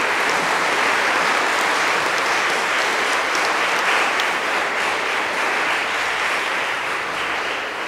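Audience applauding: a dense, steady clapping that slowly dies down toward the end.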